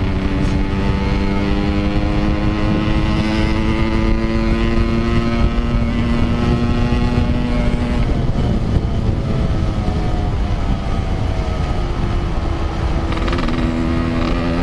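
Yamaha RX-King 135cc two-stroke single-cylinder engine through a Packing Power aftermarket exhaust, pulling under load with its pitch slowly rising. About eight seconds in the throttle closes and the engine note drops away, then it picks up again at a steady pitch near the end.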